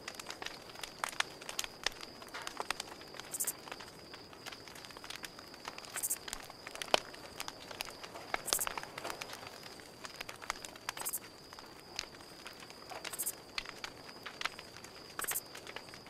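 Wood fire crackling, with irregular sharp pops and snaps, the loudest a little before halfway. Under it, a steady high-pitched trill and short very high chirps every two to three seconds.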